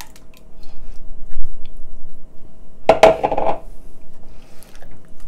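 Wooden spoon stirring chickpeas in a thick, wet mix inside a stainless steel pot, with soft scrapes and knocks against the pot. One louder knock about three seconds in leaves the pot ringing briefly.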